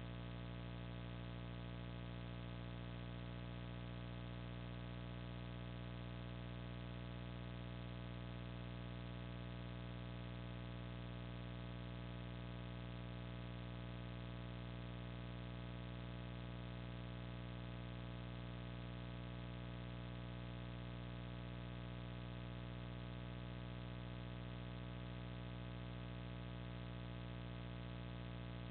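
Steady electrical hum: a dense stack of unchanging tones that holds level throughout, with no owl calls or other sounds standing out.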